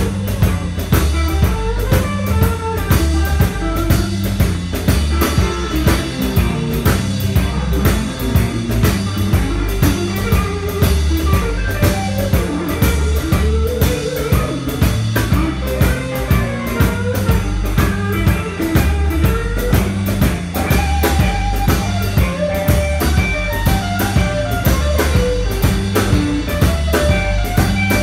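Live electric blues band playing: electric guitar lines over bass guitar and a drum kit keeping a steady beat.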